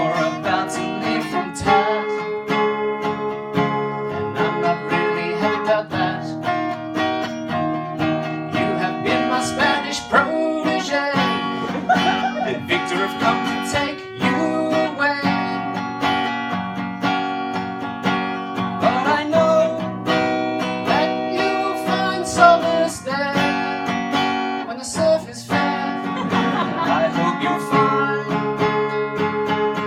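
Acoustic guitar playing the chords of a song, with some singing.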